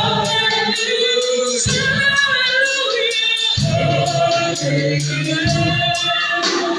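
Congregation and worship team singing a gospel chorus together, with a steady beat from the band.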